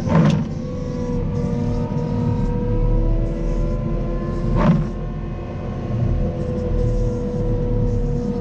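Caterpillar 926M wheel loader's diesel engine running steadily while it pushes a snow plow along the road: a low rumble with a steady whine over it. A brief, louder noise breaks through twice, near the start and about halfway through.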